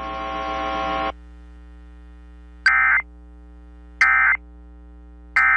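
Three short, identical bursts of Emergency Alert System digital data tones, the end-of-message codes sent at the close of an alert, about a second and a half apart. A steady electrical hum runs underneath and is louder for the first second.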